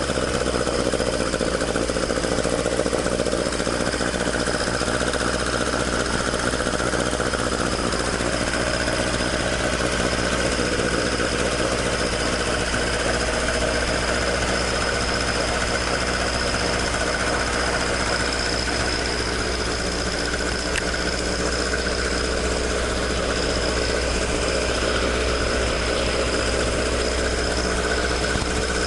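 Toyota AE86's 4A-G twin-cam four-cylinder engine idling steadily through its stock exhaust, the exhaust leak now repaired.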